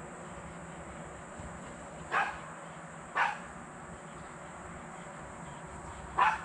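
Small dog barking three times, short sharp barks, the first two about a second apart and the third about three seconds later, while chasing a ball in play.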